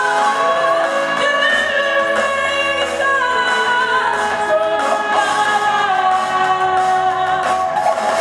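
Live pop-rock music: an electric guitar playing with a woman singing long held notes, in a concert hall.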